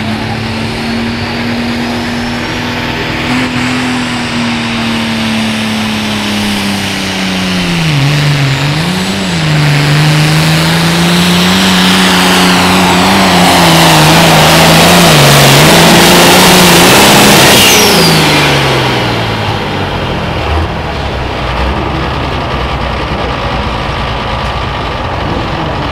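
Diesel engine of an International Limited Pro Stock pulling tractor at full throttle, dragging the weight sled down the track. Its pitch drops and wavers about eight seconds in as the load builds, it is loudest in the middle, and about eighteen seconds in the engine winds down with a high whine falling away, then runs on quieter.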